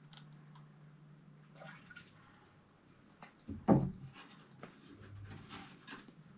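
Scattered light clicks and rustles of hands and tools working on copper pipe, with one sharp, louder knock about three and a half seconds in.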